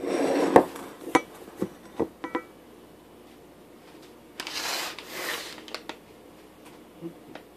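Handling noise as a camera is moved and set down on a kitchen counter. A few light knocks follow, one a short ringing clink, and there is a rustle about halfway through.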